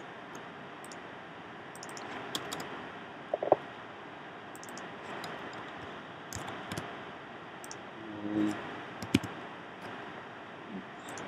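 Scattered keystrokes and clicks on a computer keyboard, a few sharper clicks standing out, over a steady hiss of background noise.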